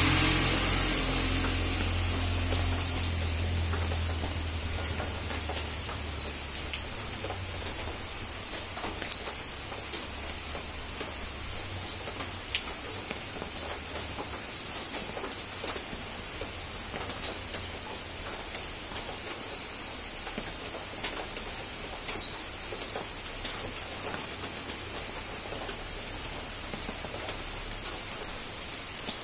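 Steady rain falling, with scattered drips and taps. A low rumble fades away over the first few seconds, and a few faint high chirps come through now and then.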